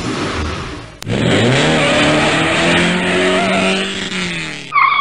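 Car sound effects: a hiss of tyre noise, then about a second in a car engine revs up and holds a steady high note. Near the end the engine cuts off suddenly and a high, wavering tyre squeal takes over.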